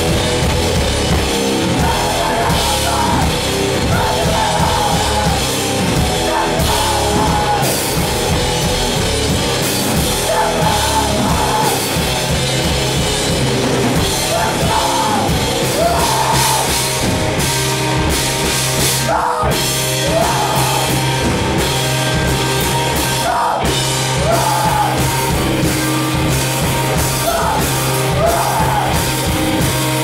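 A rock band playing live, loud and unbroken: electric guitar and drum kit, with a singer's voice over them.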